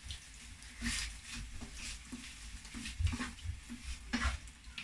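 A wooden spatula stirring chopped chicken in a frying pan, giving about five brief scrapes against the pan over a low steady hum.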